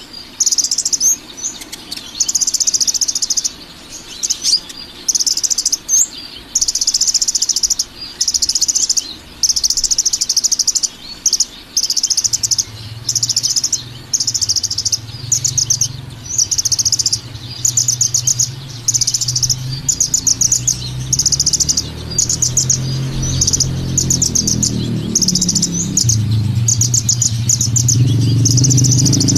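Songbird singing short bursts of rapid, high trilled notes, one after another with brief gaps between them. A low hum rises underneath from about halfway and grows louder toward the end.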